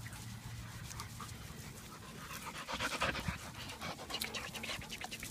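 A dog panting in quick, rhythmic breaths close to the microphone, getting louder about halfway through.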